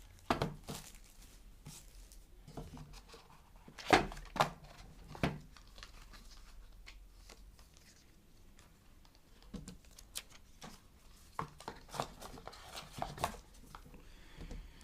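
Scattered clicks, taps and crinkles of a new smartphone being handled while its plastic protective film is peeled off. The loudest taps come around four to five seconds in.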